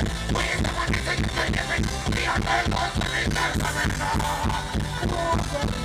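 Music with a steady, fast beat and a heavy bass line.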